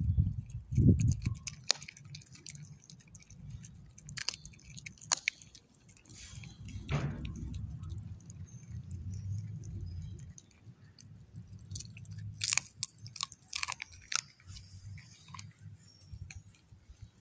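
A beagle chewing a raw chicken breast bone, with wet chewing broken by irregular sharp crunches of the bone.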